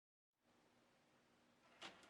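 Near silence: a faint steady hiss with a low hum starts a moment in, and there is a single soft click near the end.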